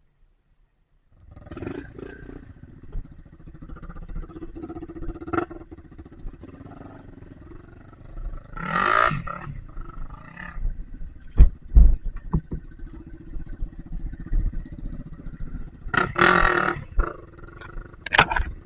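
Off-road trail motorcycle engine running, with hard revs that rise in pitch about eight seconds in and again near the end. A few sharp knocks come in the middle.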